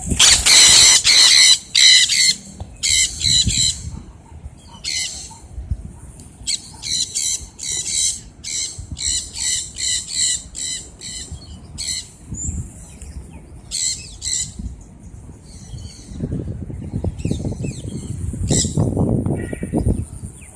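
Sun conures screeching: loud, harsh calls in a long run over the first two seconds, then bursts of short screeches several a second through the middle. A low rushing noise comes in for the last few seconds.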